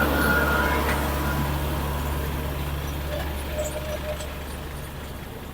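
A vehicle carrying a work crew drives past, its low engine hum fading steadily as it moves away.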